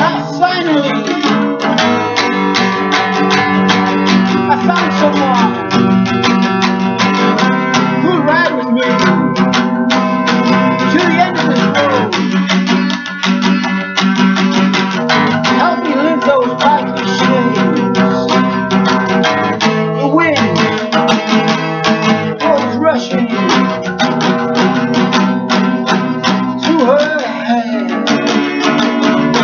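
Guitar music, an instrumental passage of strummed chords with picked notes over them; no singing.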